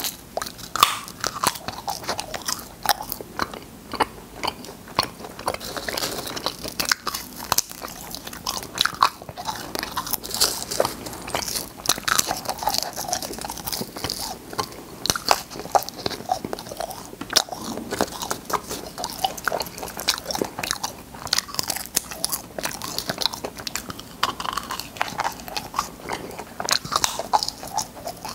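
Close-miked biting and crunching of clam-shaped cola candies, chewed in a rapid run of sharp, crackling crunches, a few each second.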